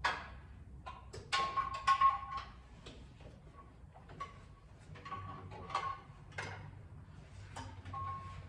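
Irregular metal knocks and clanks with short squeaks as an engine is worked into a car's engine bay with a jack; the loudest cluster comes about a second and a half in.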